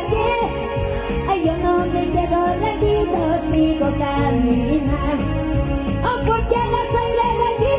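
Praise music (an evangelical alabanza): a melodic sung line over a band with a steady beat.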